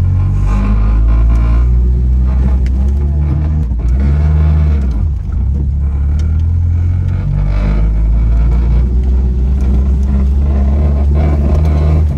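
A vehicle engine running with a deep, steady rumble, its pitch shifting slightly now and then.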